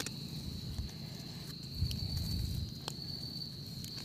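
Night insects trilling on one steady high note, with low rustling from hands picking mushrooms about two seconds in.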